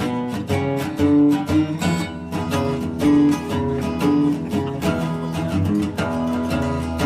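Instrumental background music with a steady, quick beat.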